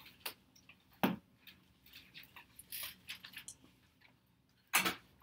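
Scattered small clicks, taps and knocks of desk work in a small classroom, such as pencils, paper and objects set down on desks, with two louder knocks about a second in and near the end.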